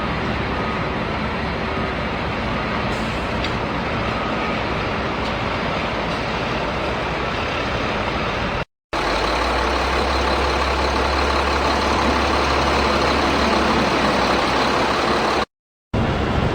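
Steady vehicle engine-like rumble with a constant hiss, heavier at the low end in the second half. It cuts to silence twice, briefly, as if at edits.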